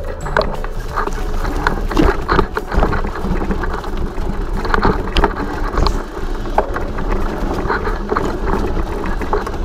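Mountain bike riding over a dirt trail: tyres crunching on the ground and the bike rattling over bumps, with frequent short clicks and knocks, under a steady rush of wind noise on the microphone.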